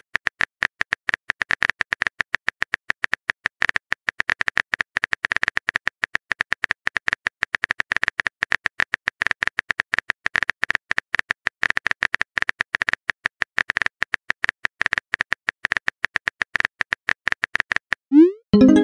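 Simulated phone-keyboard typing clicks from a texting-story app, a fast, irregular stream of short sharp ticks as a message is typed out. Near the end a message-sent sound starts: a quick rising swoop and a short chime.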